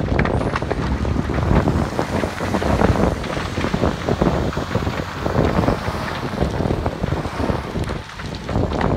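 A building fire crackling and popping in a dense, continuous rush, under heavy wind rumble on the microphone.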